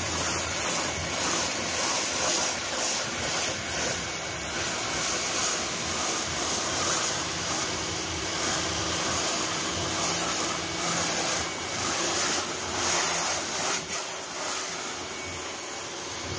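Pressure washer running steadily, its jet of water hissing against styrofoam hydroponic boards, with a faint motor hum underneath.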